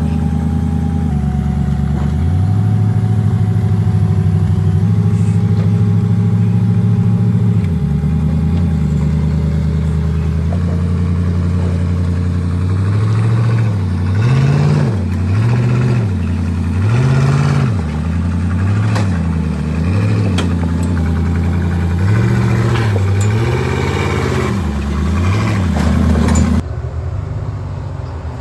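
Off-road vehicle's engine running steadily, then revved up and down in a string of short blips while crawling over the trail. Near the end it cuts to a quieter, lower engine sound.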